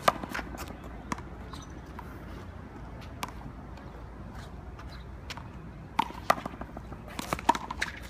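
Rubber handball smacking off the concrete wall and court, and off a player's gloved hand, in a one-wall handball rally: single sharp smacks a few seconds apart, then a quicker run of smacks and sneaker scuffs near the end.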